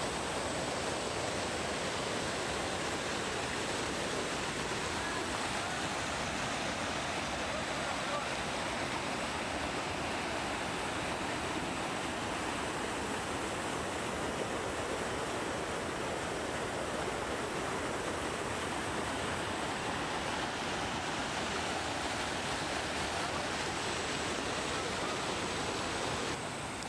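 Steady rush of a waterfall and river rapids pouring over rock ledges.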